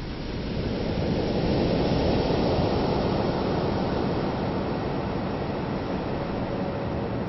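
Heavy splashing and rushing seawater as a breaching great white shark falls back into the sea; the rush swells about a second in and then goes on steadily.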